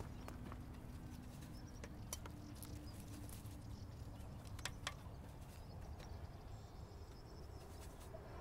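Faint, scattered light clicks and taps of painting gear being handled, such as brushes knocked against a palette or water jar, over a low steady outdoor background.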